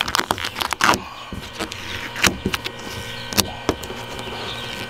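Red vinyl wrap being peeled by hand off a car's painted panel: irregular crackling and ripping as the film and its adhesive pull away, densest in the first second, then in scattered snaps.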